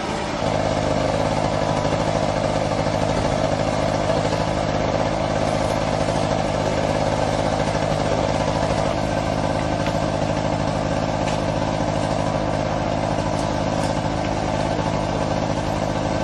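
Motor vehicle engine running steadily with an even drone. It grows louder about half a second in and holds level.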